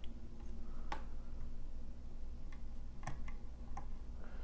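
Lock pick and tension wrench working the pins of a pin-tumbler lock, giving a few sharp, irregular metallic clicks about a second apart.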